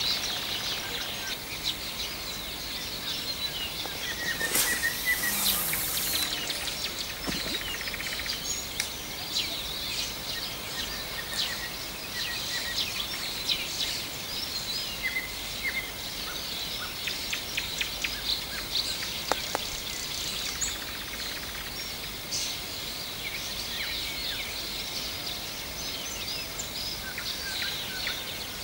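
Many songbirds singing at once, a dense chorus of short high chirps and calls. A brief hiss comes about five seconds in.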